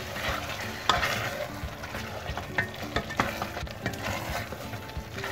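Wooden spatula stirring chicken pieces, onion and spices in a stainless steel pot, knocking irregularly against the pot, the sharpest knock about a second in, while the mixture sizzles in the oil.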